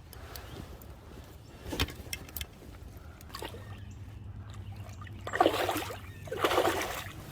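Water splashing in two short bursts, a hooked fish thrashing at the surface as it is brought in to be netted, with a few small clicks before.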